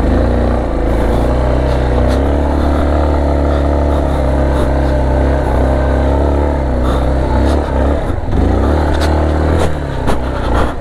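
Big-trail motorcycle engine running while riding a rough dirt trail. Its pitch holds fairly steady, dips briefly about eight seconds in, then rises again, with scattered sharp knocks and clatters throughout.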